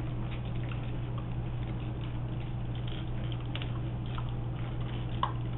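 Scattered light clicks and crunches of dry dog-food kibble being moved about and eaten on a tiled floor, over a steady low hum.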